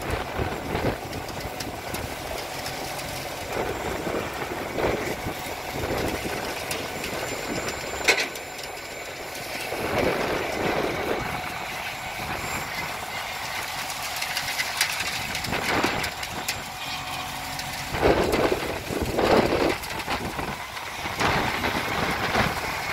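Concrete mixer truck's diesel engine running steadily, with a few louder noisy swells, the strongest about eighteen seconds in.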